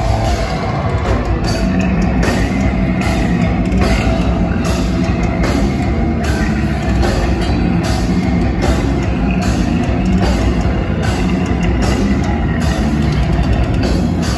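Deathcore band playing live at full volume: heavily distorted, down-tuned guitars and drum kit. Heavy hits land at an even, slow pace.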